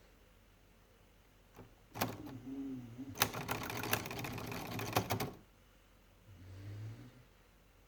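Olivetti Lettera 22 portable typewriter clattering as a cat paws at it: a sharp click about two seconds in, then a rapid run of key and typebar clicks lasting about two seconds.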